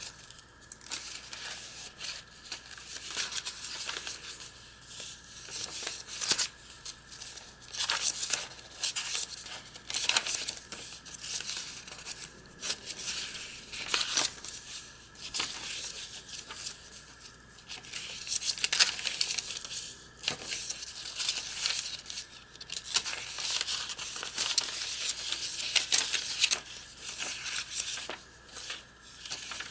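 Paper rustling and crinkling in repeated irregular swishes as the pages and inserts of a handmade junk journal are turned and handled.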